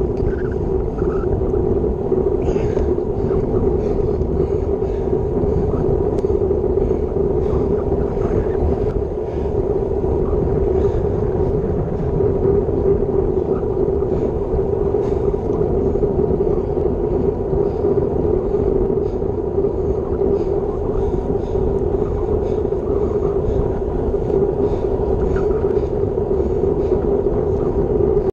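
Steady rush of wind and road noise on an action camera's microphone as a road bike is ridden at about 30 km/h, with a constant low drone running through it.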